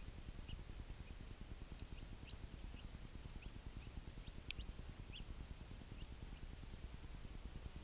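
Ducklings peeping: short, high chirps scattered irregularly, a few a second, with one sharper peep about halfway through, over a steady low rumble.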